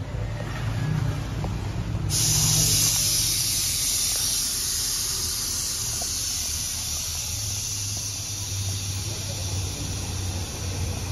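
Freon hissing through a car AC manifold gauge set and its hoses as a valve is opened, starting suddenly about two seconds in and then holding steady, over a low steady hum.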